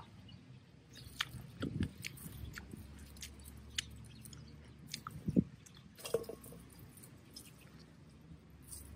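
Hands picking cherry tomatoes off the vines: irregular small snaps, rustles and crackles of stems and leaves, with a couple of louder soft knocks.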